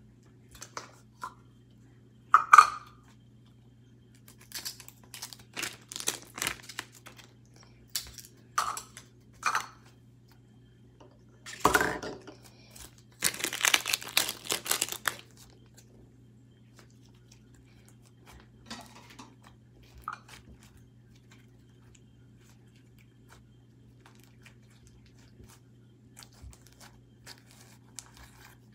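Yellow butter slime mixed with sprinkles being kneaded, stretched and pressed by hand on a stone counter: scattered sticky crackles and small pops, with a louder spell of crackling about halfway through. A steady low hum runs underneath.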